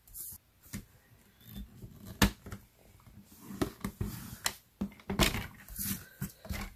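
Designer paper being handled and scored on a paper trimmer: irregular sharp clicks and taps from the trimmer's plastic rail and blade carriage, the loudest about two seconds in, among light paper sliding and rustling.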